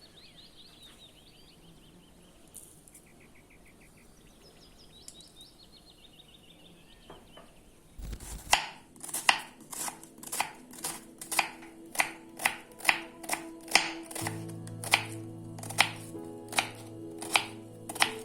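Faint high chirping trills, then a regular series of sharp knocks about two a second, joined about six seconds later by sustained low musical tones.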